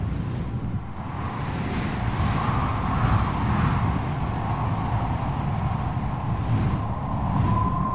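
Strong storm wind blowing in gusts: a deep rumble with a hissing, whistling band that swells and eases every couple of seconds. A thin high whistle comes in near the end.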